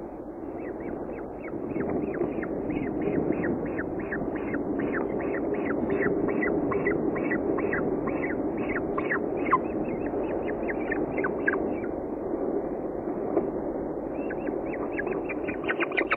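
Falcon chick begging at a feeding: a rapid series of short, falling calls, about three a second, over a steady low rumble.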